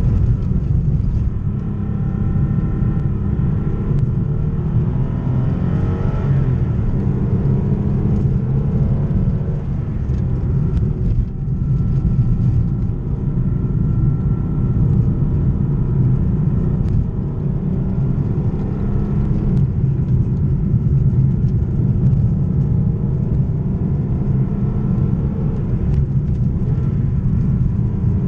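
Porsche 911 964 Carrera 2's air-cooled 3.6-litre flat-six engine heard from the cabin under way, its revs rising and falling as it is driven.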